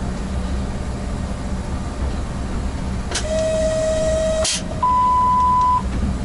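Steady low running rumble in the cab of a ChS200 electric locomotive under way. About three seconds in, a steady tone over a hiss sounds for about a second and a half and cuts off with a sharp click. A higher, louder single tone follows for about a second.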